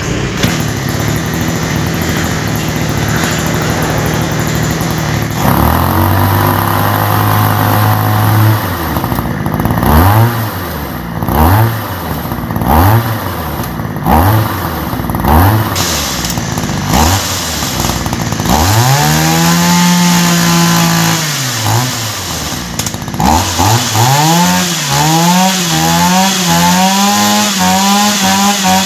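A small electric motor, like that of a hand power tool, runs steadily at first. It is then switched on and off repeatedly, its pitch rising each time it spins up. Near the end it is held for longer runs.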